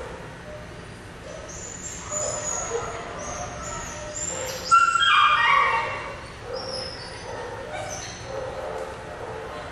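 A schnauzer whining and yelping in short, high-pitched cries, loudest in a falling run of cries about five seconds in.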